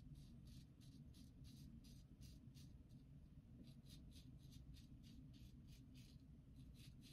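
Kampfe Bros "SCS" lather-catcher safety razor with a GEM PTFE single-edge blade scraping through lathered stubble on the neck. The strokes are faint, quick and short, about three or four a second, with a brief pause about three seconds in.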